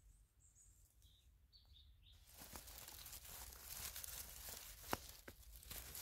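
A few faint high bird chirps, then from about two seconds in a rustling, crackling of dry forest litter with several sharp snaps, growing louder.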